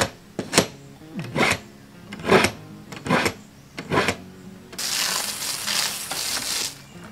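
Kitchen knife drawn through a small handheld knife sharpener: about six short rasping strokes, a little under a second apart, then a steady scraping hiss lasting about two seconds.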